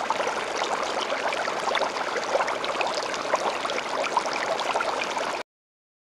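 Aquarium water bubbling and trickling steadily, full of tiny splashy pops, cutting off abruptly near the end.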